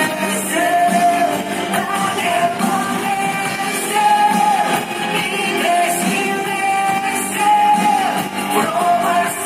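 Live pop song performed on stage: a singer holding long notes over instrumental backing, heard from the audience through the hall's sound system.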